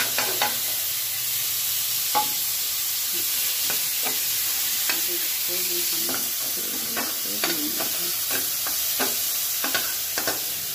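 Chopped tomatoes going into a hot steel kadhai of fried onions and sizzling steadily in the oil, with a few knocks near the start as they are tipped in. A metal spoon then scrapes and clinks against the pan again and again as the mixture is stirred.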